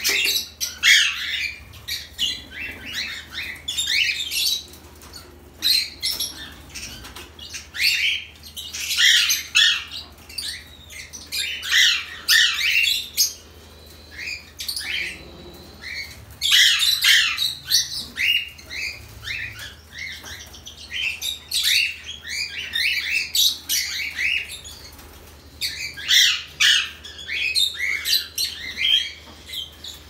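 Caged pet birds chirping and squawking: bursts of many rapid, high, short calls, broken by brief pauses every few seconds.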